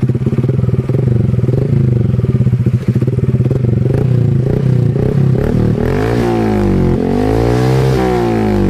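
Honda Supra X 125 FI's single-cylinder four-stroke engine through an aftermarket DST Racing slip-on exhaust, running at idle and then revved up and back down twice over the last few seconds.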